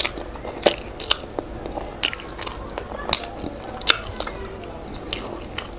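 Close-miked mouth sounds of a person eating boiled yam with owo stew: wet smacks and sharp clicks from chewing, coming irregularly about every half second.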